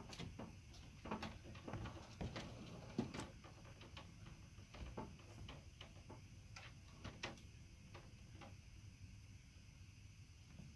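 Scattered light clicks and knocks as the toy hauler's rear garage doors and their latches are handled, most of them in the first few seconds.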